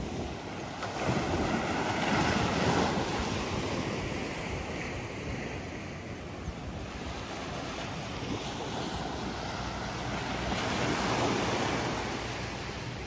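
Surf from the Andaman Sea washing onto a sandy beach, swelling twice, with wind on the microphone.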